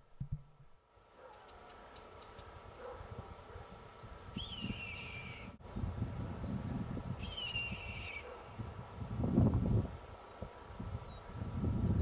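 Red-tailed hawk giving two high-pitched screeches, each sliding down in pitch and lasting about a second, the first about four seconds in and the second about seven seconds in. Bursts of low rumble come and go between and after the calls and are loudest about nine seconds in.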